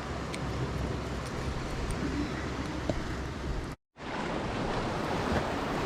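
Surf washing against the rocks, with wind on the microphone; the sound cuts out completely for a moment about two-thirds of the way through, then resumes.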